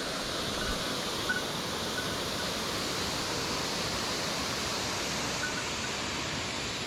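Mountain stream water rushing as a steady, even noise. A few faint, short high notes sound over it now and then.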